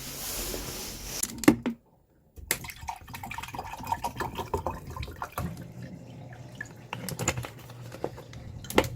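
Water running and splashing, with irregular clicks and knocks. The sound drops out for about half a second near two seconds in.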